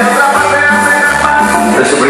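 Loud Latin dance music played over a sonidero DJ's sound system, with a steady rhythmic bass pulse.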